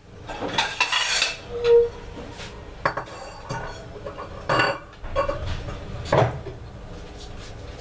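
Eggs and a ceramic bowl being handled and set down on a tiled counter: a series of separate clinks and knocks, one with a short ring.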